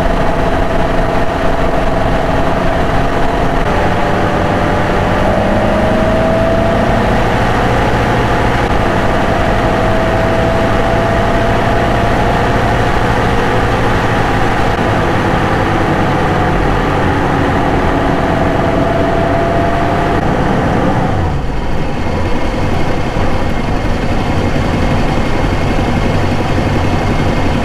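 Porsche 928 S V8 engine running while the car drives along, its note drifting slowly up and down, then dropping sharply about three-quarters of the way through.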